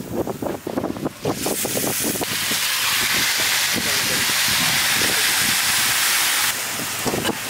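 A metal ladle scrapes and stirs spiced masala in a large iron kadai. Then a loud, steady sizzle as raw fish chunks go into the hot oil and masala, cutting off suddenly about a second before the end.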